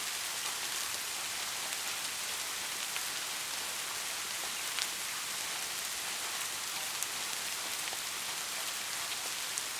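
Steady rain falling, an even hiss with scattered sharper ticks of individual drops hitting a surface.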